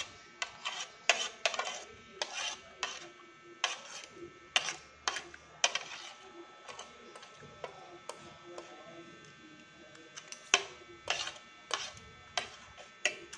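Spoon and fork clinking and scraping against a plate during a meal: irregular sharp clinks, the loudest about ten and a half seconds in.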